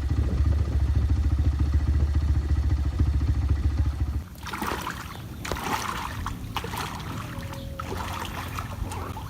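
An engine running with a fast, steady pulse cuts off suddenly about four seconds in. After it come irregular splashes and trickling in shallow floodwater.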